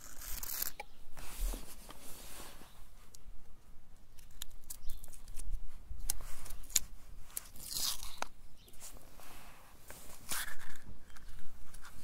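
Paper wrapper being torn and peeled off an ice cream cone: irregular crinkling and tearing with sharp little crackles, louder rustles about half a second in, near 8 seconds and near the end.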